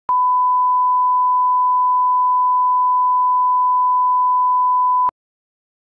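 Line-up reference tone for colour bars: a single steady 1 kHz sine tone, held for about five seconds and then cutting off sharply.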